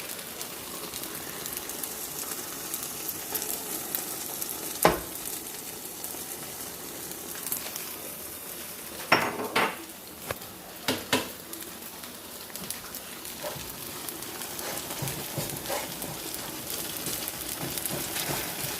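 Korean pancakes sizzling steadily as they fry in oil in a pan, with a few sharp knocks of a utensil against the pan about five, nine and eleven seconds in.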